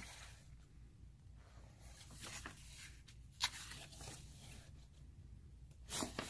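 Faint rustling and handling of paper and cardboard game components, such as rulebooks being picked up and turned over, with one sharp tap about three and a half seconds in.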